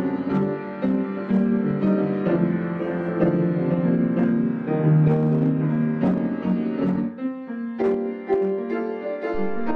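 Piano music: a melodic piano passage with sustained notes struck one after another, thinning briefly about two-thirds of the way through before continuing.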